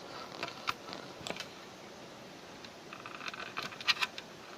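Small plastic clicks and rattles as a battery plug and battery pack are handled and fitted into a Hitec Optic 6 transmitter's battery compartment. There are a few clicks in the first second and a half, then a quick cluster about three to four seconds in.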